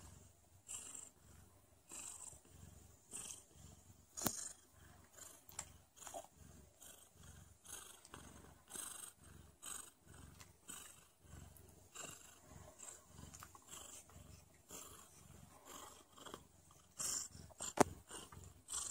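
A heavily pregnant Sphynx cat, close to labour, purring softly, the purr swelling and fading about once a second with her breathing. Two sharp clicks cut through it, one about four seconds in and a louder one near the end.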